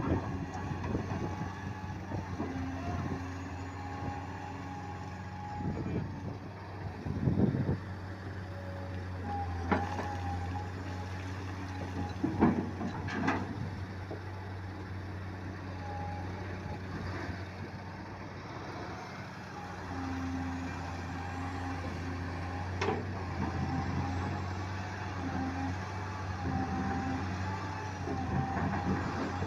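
Heavy diesel machinery running steadily with a low drone and a whine that wavers in pitch, broken by several sharp metallic clanks.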